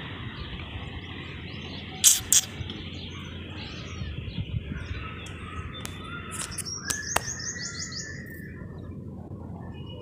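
Small birds chirping over a steady background hiss, with a quick run of high repeated chirps about seven seconds in. Two sharp clicks sound about two seconds in.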